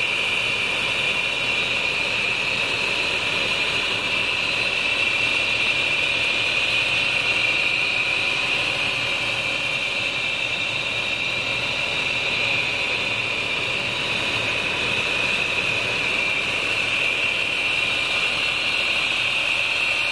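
Coach bus's rear-mounted diesel engine running steadily, heard up close at the open engine bay, with a steady high-pitched whine over the engine noise.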